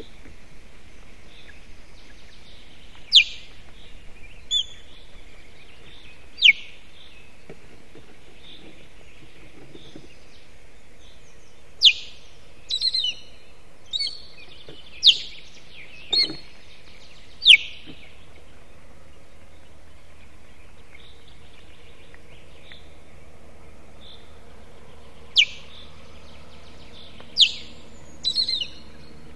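Osprey alarm calls: short, shrill whistles that sweep sharply downward in pitch, given singly every few seconds, with a few quicker chipping notes in between, over a steady low hiss.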